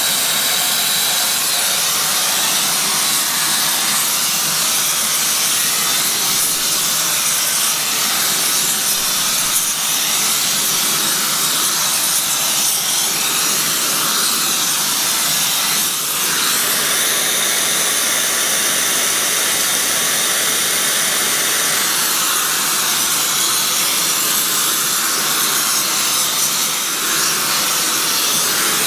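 Gas torch flame burning with a steady rushing hiss as it preheats a cast iron casting for a braze repair; its tone shifts a little partway through as the flame is moved over the part.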